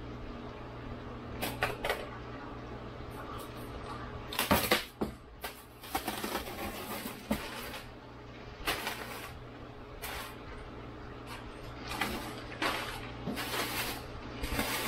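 Cardboard, newspaper packing and a plastic fish bag rustling and crumpling as a fish shipping box is unpacked, in a series of short bursts with a sharp knock about four and a half seconds in. A steady low hum runs underneath.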